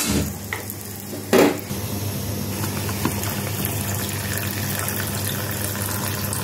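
Milk poured from a packet into a pan of boiling tea, a steady pour over the bubbling of the tea. A single sharp knock about a second and a half in.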